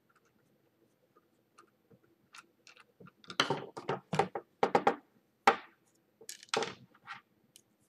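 A string of sharp clicks and knocks from the AMB spindle's plastic housing and small hand tools being handled as the housing is opened to reach the motor brushes. Faint ticks come first, then the clicks come thick and loud from about three seconds in.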